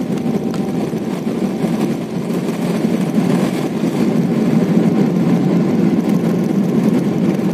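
Cabin noise of a Boeing 777-300ER taxiing, its GE90-115B turbofans running with a steady low rumble, heard from a window seat beside the wing. The sound gets a little louder about two seconds in.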